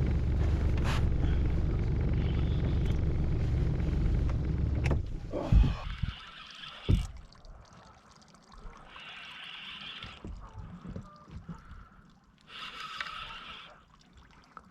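Small boat's motor running steadily; it cuts off about five seconds in. Two sharp knocks follow, then quiet water trickling and lapping with a few faint scrapes.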